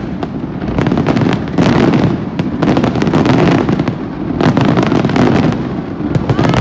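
Fireworks display: a dense, continuous barrage of overlapping bangs and crackles with no pause.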